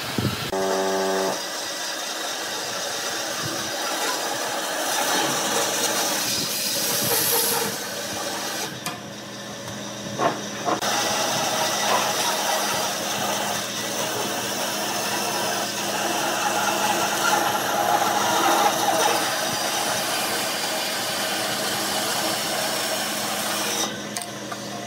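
Bandsaw running and cutting a curve through a thick block of glued-up hardwood: a steady hiss of the blade in the wood over a low motor hum.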